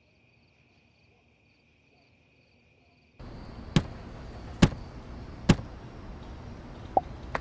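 Faint crickets chirping, cut off suddenly about three seconds in by a steady hiss. Over the hiss come three sharp hopping thuds about a second apart, the footfalls of a toy-brick cow leaping along in stop-motion.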